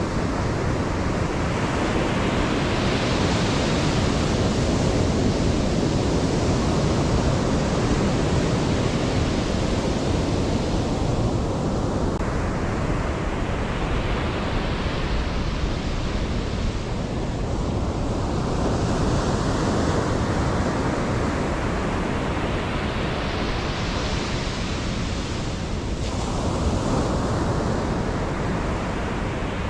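Ocean surf breaking on a sandy beach: a continuous rush of water, with a fresh wave swelling in and washing up every several seconds.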